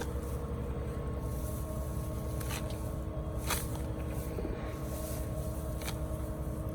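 Combine harvester running steadily, a low rumble with a constant hum, while a few short crackles come from the grass being pulled out of the header.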